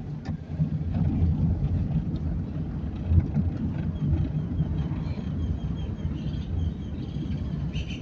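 Car engine and tyre noise heard from inside the cabin while driving slowly down a street: a steady low rumble.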